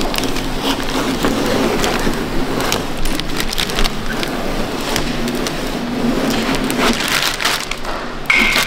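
Clear paint-protection film crinkling and crackling as it is handled, peeled and pressed onto the tailgate, a dense run of small crackles and clicks.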